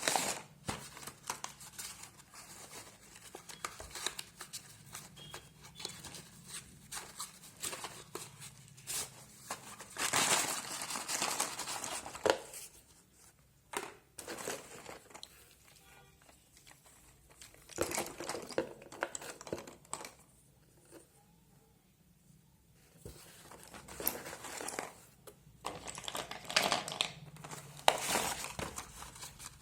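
Packaging of a box of slate pencils being handled and opened: crinkling and tearing with many small clicks and taps. There are louder rustling spells about a third of the way in, around two-thirds, and near the end, with quieter pauses between.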